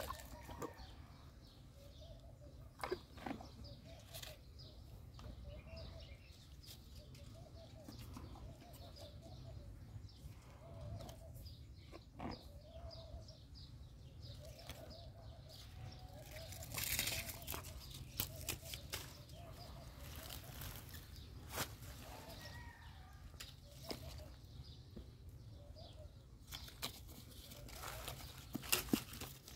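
A horse biting and chewing leaves and small green fruit pulled from a hand-held branch, with crisp crunching and leaf rustling, loudest about halfway through. Faint short calls come and go behind it.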